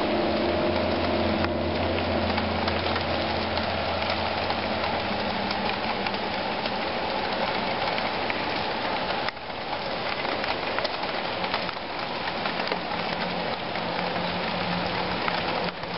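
A low, trumpet-like drone of several held tones sounding together, the kind of unexplained 'strange sound from the sky' people report, fading out about four or five seconds in. A fainter held tone returns near the end, over a constant hiss.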